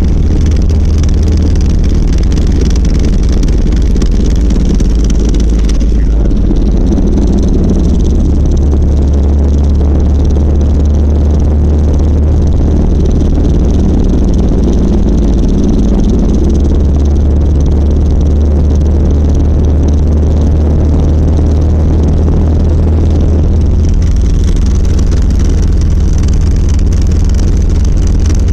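A 1990 Volvo 740 running with a loud, steady low rattling vibration. The owner traced it to the driveshaft: a worn center support and/or bearing. The sound's character shifts about six seconds in and again near the end.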